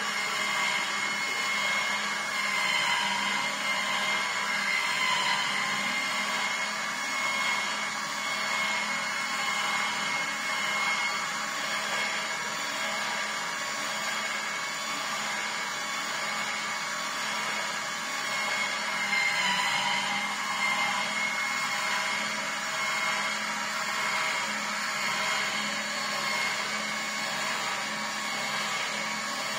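Vertical slow juicer running steadily as it presses pineapple chunks, a continuous even motor hum.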